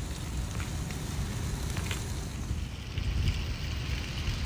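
Wind rumbling on the microphone, with a few faint scattered ticks over it.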